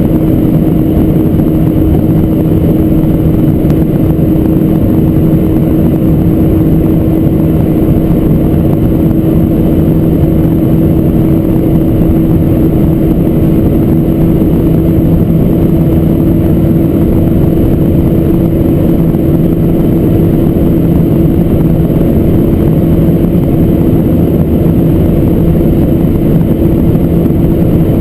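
Mercedes-Benz SLS AMG Roadster's 6.2-litre V8 running at a steady high speed, its engine note holding one pitch, under heavy wind and road noise.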